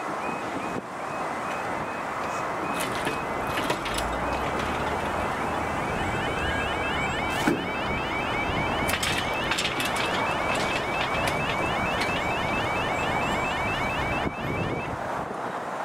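Level crossing warning alarm sounding its fast repeating electronic yodel tones while the barriers lower, over a steady rush of background noise. The alarm stops near the end, as the barriers finish coming down.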